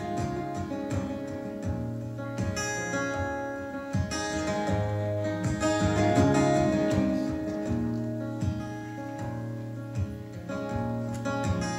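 Solo acoustic guitar strumming chords in a steady rhythm: the instrumental intro of a song, before the vocal comes in.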